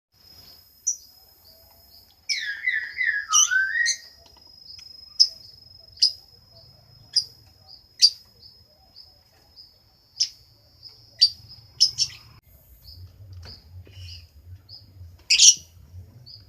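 Lovebird chirping: sharp, shrill single chirps about once a second, with a quick run of falling warbled notes between about two and four seconds in and a louder call near the end.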